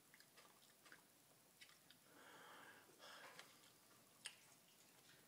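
Faint mouth sounds of a man chewing raw garlic cloves: small wet clicks, two audible breaths about two and three seconds in, and a sharper click just after four seconds.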